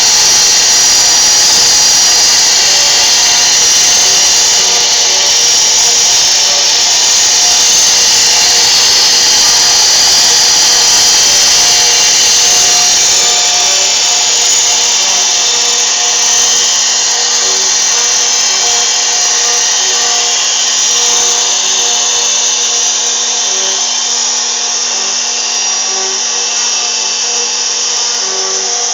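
CNC router carving wood: a steady, high-pitched spindle and cutting noise that eases slightly toward the end.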